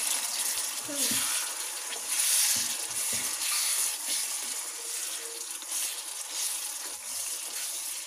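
Sliced tomatoes and browned onions sizzling in hot oil in a pot while being stirred with a spatula, the frying hiss swelling with each stir.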